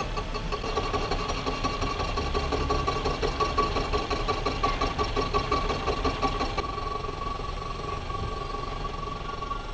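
A milling machine spindle drives a homemade face mill whose high-speed-steel cutters, ground from broken tap shanks, are facing a cast aluminium plate. A steady machine whine runs under a rough, pulsing cutting noise, which sounds like all four cutters are cutting evenly. About two-thirds of the way in, the cutting noise lightens and the hiss above it fades, leaving mainly the whine.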